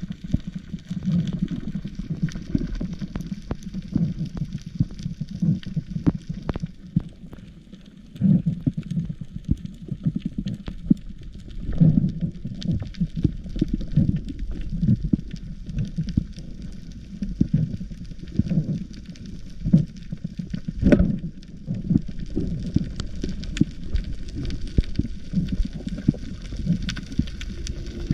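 Muffled underwater water noise heard through a camera housing: a low, churning rumble with irregular dull thumps, the loudest about twelve seconds in and again near twenty-one seconds.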